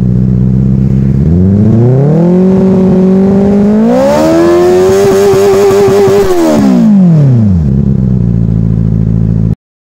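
Benelli 600i's inline-four engine idling, then revved in two steps, first held at a moderate rev and then higher, before the revs fall back to idle. The sound cuts off abruptly near the end.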